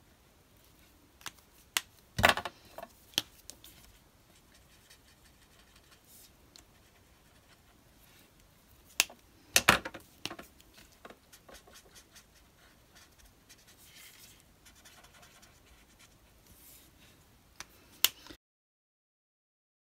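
Handling sounds while colouring small die-cut card pieces with an alcohol marker: faint scratching of marker and paper on the mat, broken by sharp clicks and taps, loudest about two seconds in and again around ten seconds, as the marker and pieces are handled. The sound cuts out completely near the end.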